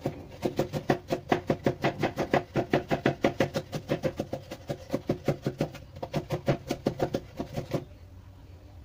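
Chef's knife rapidly chopping garlic on a wooden cutting board, an even run of about five or six knocks a second that stops shortly before the end.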